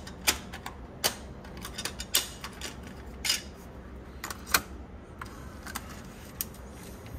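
Irregular plastic clicks and clacks of a cassette tape being handled: a level test tape picked up and loaded into the cassette deck's tape well, over a low steady hum.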